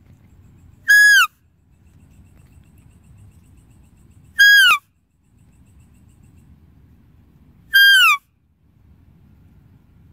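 A high, whistle-like deer call, sounded three times about three and a half seconds apart. Each short note holds its pitch and then drops at the end.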